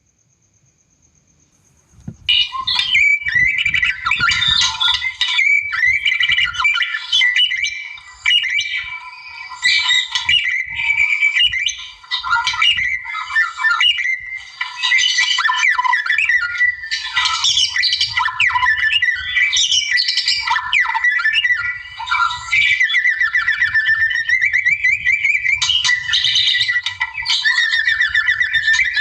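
White-rumped shama (murai batu) singing a loud, continuous song of rapidly changing whistles and chattering phrases, starting about two seconds in.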